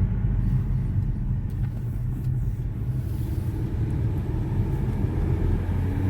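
Steady low rumble of a 2015 Audi Q3 under way, its four-cylinder engine and tyre noise heard from inside the cabin.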